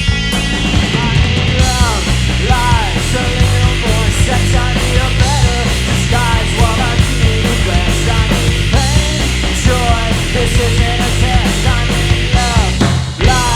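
Three-piece rock band playing loud punk-style rock live: distorted electric guitar, bass and drums, with a brief break in the playing near the end.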